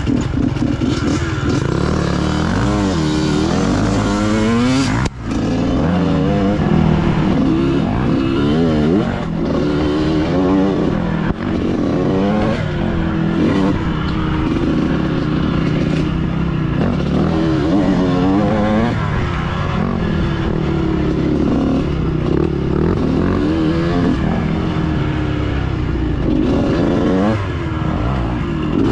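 Dirt bike engine on the move along a trail, its pitch rising and falling with the throttle and gear changes every second or two. There is a brief sharp break in the sound about five seconds in.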